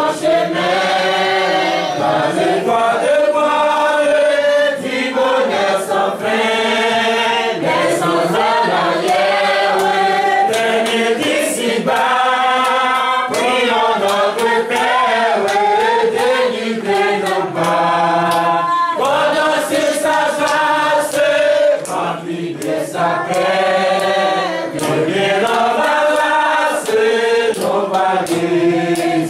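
A group of voices singing together in church, in phrases with short breaks between them.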